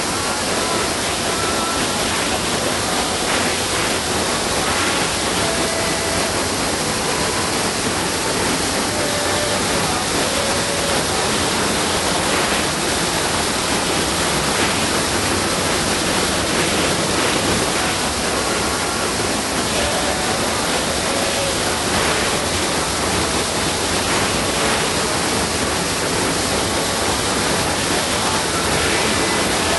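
Underground waterfall in a cave, white water pouring and crashing close by as a loud, steady, unbroken rush.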